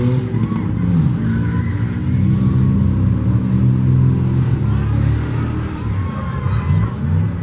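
Engines of several demolition derby cars revving hard, their pitch rising and falling as the cars drive and ram about the arena.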